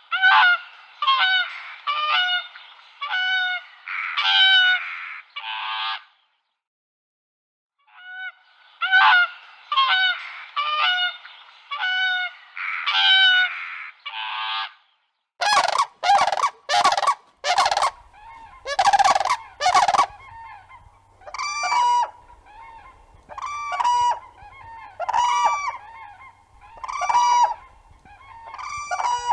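A large bird's honking calls, given in quick repeated series, with a short silence about six seconds in. About halfway through the sound changes to a different recording: a few harsh, noisy calls, then evenly spaced honks, about one a second.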